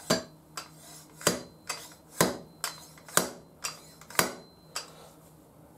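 A fork dust cap being tapped down into the fork slider with a tool: about ten sharp taps, roughly two a second, alternating louder and softer.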